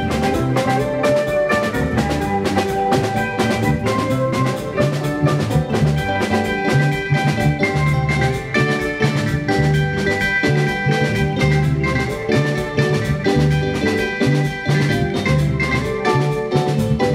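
Live band playing an upbeat instrumental passage: bright, clean picked electric lead guitar over electric bass and a drum kit keeping a steady, quick beat.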